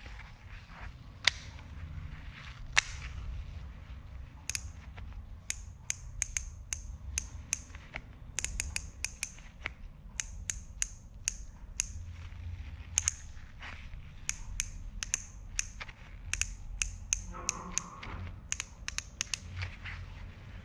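Daiwa Tatula SV baitcasting reel clicking as it is handled and its controls are worked: irregular sharp clicks, sometimes single and sometimes in quick runs of several a second.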